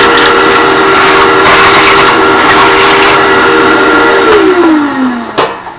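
Shop vacuum running with a steady whine as its hose sucks debris out of a chainsaw's flywheel fan housing. About four seconds in it is switched off and the motor's pitch falls as it winds down. There is a sharp knock shortly before the end.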